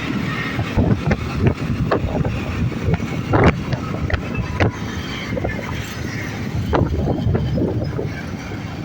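Wind buffeting the microphone: a steady low rumble broken by frequent sudden gusty thumps.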